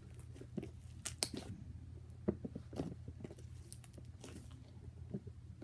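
Butter slime being kneaded and squeezed by hand, giving irregular soft sticky clicks and squishes, the sharpest a little after a second in.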